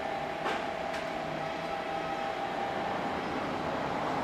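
BLS Ae 4/4 electric locomotive moving slowly past, a steady running noise with a hum of two steady tones that fades out about halfway. Two sharp clicks about half a second apart come near the start.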